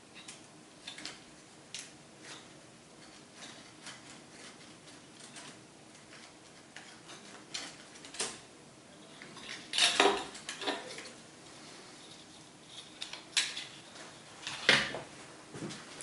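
Light metallic clicks and clinks from an old typewriter's mechanism being handled, irregular and scattered, with a few louder clanks about ten seconds in and again near the end.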